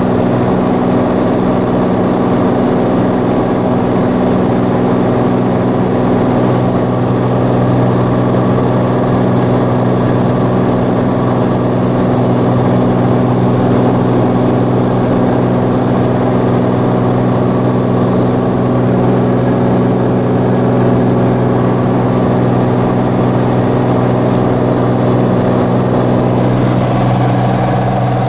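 Cirrus SR22 Turbo's six-cylinder piston engine and propeller droning steadily at climb power, about 2480 rpm, heard inside the cabin.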